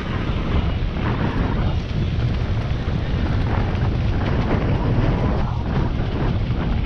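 Mountain bike rolling over a gravel dirt road: a steady heavy rumble of wind buffeting the camera microphone, with tyres crunching and the bike rattling in many small clicks over the loose stones.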